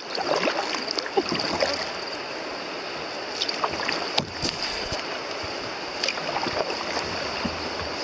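River water rushing and lapping against a kayak's hull, with scattered small splashes and drips.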